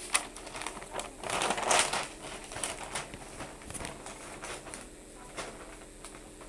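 Close rustling and crinkling with a run of sharp clicks, loudest in the first two seconds and dying away after about five seconds: handling noise on the microphone of the device filming the TV.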